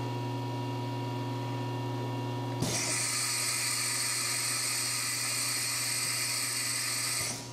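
Compressed air hissing steadily through the Hurco VM1 CNC mill's spindle as the pneumatic drawbar is released. It starts suddenly a few seconds in and cuts off just before the end, over a steady machine hum. The unclamp is working normally when operated by hand.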